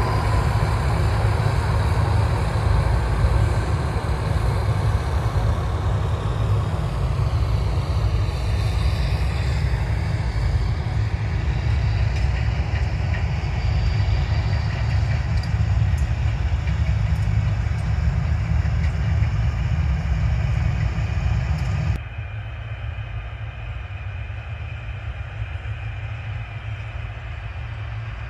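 Combine harvester running steadily while harvesting: a continuous engine and threshing drone, heaviest in the low end. About 22 seconds in it drops suddenly to a quieter, duller run of the same kind of machine.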